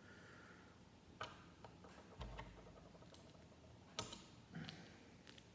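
Faint, scattered clicks and taps of plastic LEGO pieces being handled and pressed together, about half a dozen sharp clicks spread over several seconds.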